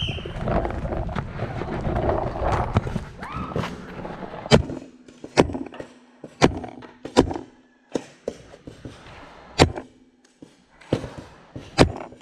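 Paintball markers firing: about eight sharp pops at uneven intervals, beginning about four and a half seconds in, after a few seconds of jumbled noise.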